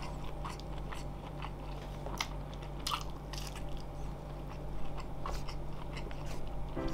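Close-miked chewing and biting: a man eating a Kanzler sausage, with wet mouth clicks and smacks scattered throughout.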